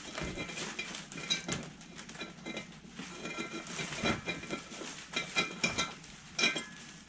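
Metal parts of a drip torch clinking and knocking as they are worked loose by hand: a run of irregular metallic knocks and clicks, the louder ones ringing briefly.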